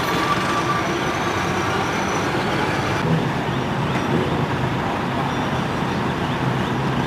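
Steady road-vehicle noise: a low engine hum under an even wash of road and traffic rumble.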